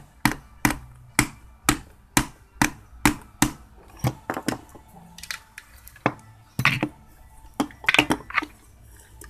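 Sharp knocks on the metal housing of a 1989 Mazda Capella's radiator fan motor, about two a second for the first few seconds, then irregular knocks and clatter. The end cap is being tapped shut over the newly fitted brushes.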